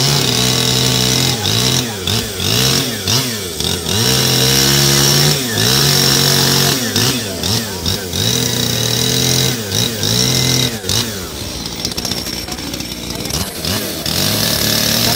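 Two-stroke chainsaw carving into a wooden log, its engine revving up and down over and over as the bar dips in and out of the cut, with a few steadier stretches at high revs.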